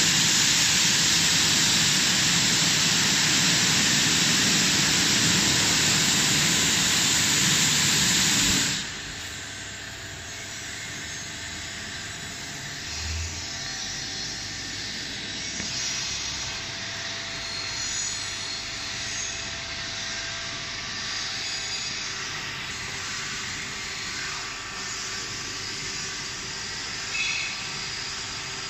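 Golden Boat T12 touchless car wash machine jetting high-pressure water onto a car: a loud, steady hiss of spray that cuts off suddenly about nine seconds in. After that comes the quieter hum of the machine running, with faint steady whines as its spray arm moves around the car.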